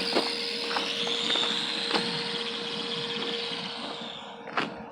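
Redcat Volcano RC monster truck driving at speed, its motor whine climbing in pitch, holding high for a few seconds, then fading away near the end. A few sharp knocks along the way, the loudest near the end.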